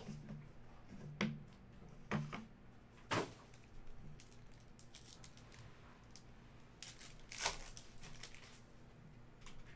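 Foil trading-card pack and cardboard box being handled and the pack torn open: a few short, crisp crinkles and rustles of the wrapper and cards, the loudest about three seconds in and again near the end.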